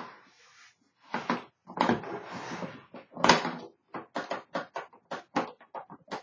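Typewriter carrying case being handled and opened: scrapes and knocks, then a quick run of sharp clicks and taps near the end.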